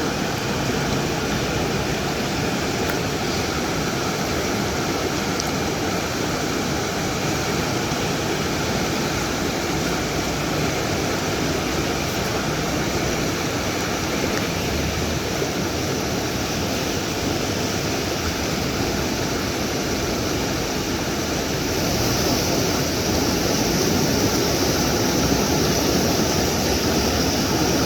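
River water rushing steadily, growing a little louder and brighter about three-quarters of the way through.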